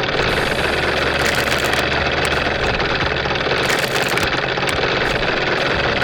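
An engine running steadily at high power, a loud unbroken rush with a low hum under it.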